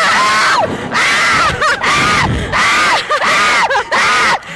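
Two women screaming in terror while flung about on a slingshot thrill ride: a run of loud, half-second screams that rise and fall in pitch, one after another with brief breaks for breath.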